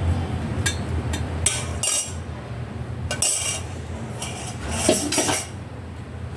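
Metal kitchen utensils clinking and scraping against dishes and pans in a handful of short bursts, over a steady low hum.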